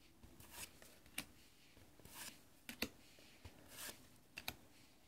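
Faint handling of a small stack of trading cards, each card slid off the front and tucked behind: a few soft swishes of card sliding on card and small sharp snaps.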